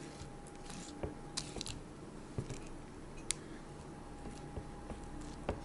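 A spatula spreading sour-cream frosting around the sides of a layered cake: soft scrapes and a few scattered light clicks, some against the glass cake stand, over a faint steady hum.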